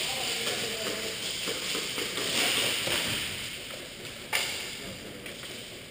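Indoor airsoft game din: a steady hiss with scattered faint clicks of airsoft gunfire and BB hits echoing around the arena, and one sharp loud crack about four and a half seconds in.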